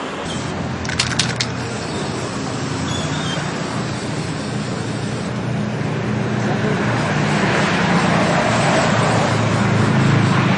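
Street traffic noise: a steady hum of engines and tyres that swells over the second half as a vehicle draws closer. A few sharp clicks sound about a second in.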